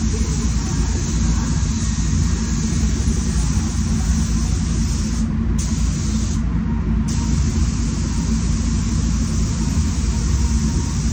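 Spray booth's ventilation fans running with a steady rumble, under the hiss of a SATA Jet 5000 RP spray gun laying down paint. The hiss cuts out twice, briefly, a little past the middle, as the trigger is let off between passes.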